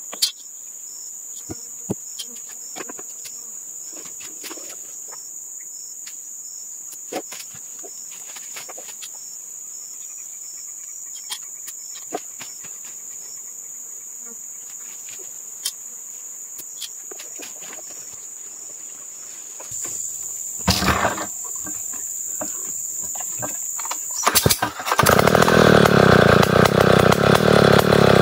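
Steady high-pitched insect chirring with scattered small clicks and knocks. About 25 seconds in, a chainsaw starts up and runs loudly, after a brief louder burst a few seconds earlier.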